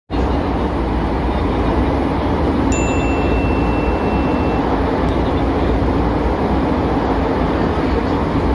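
Metro train running, a steady low rumble heard from inside the carriage. A thin high tone starts with a click nearly three seconds in and lasts about two seconds.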